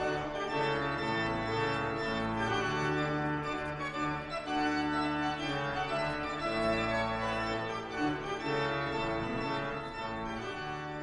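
Background music: sustained, organ-like keyboard chords moving slowly from one to the next.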